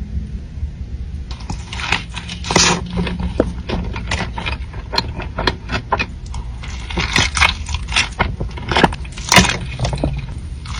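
Close-miked eating: chewing and biting with a dense run of sharp wet crackles and smacks that starts about a second in, over a low steady hum.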